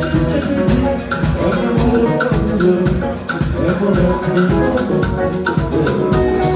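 A live band playing Congolese rumba-style dance music: a drum kit keeping a steady, fast beat under repeating electric guitar lines, with a shaker or hi-hat ticking on top.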